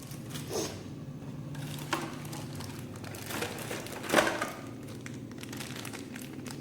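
Packaging crinkling and rustling in a few short bursts as the box contents are handled, the loudest a little past the middle, over a low steady hum.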